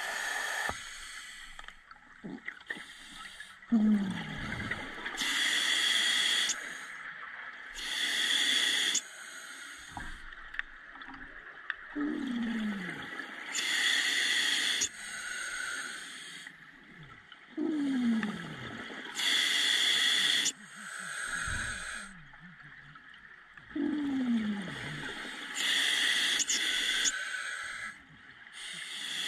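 Scuba diver breathing through a regulator: loud hissing breaths alternate with bubbling exhalations, one breath cycle about every six seconds.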